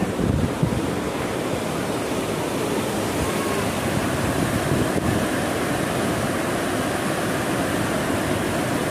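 Steady rushing of the Zayanderud river pouring through the sluice channels of the Khaju Bridge weir.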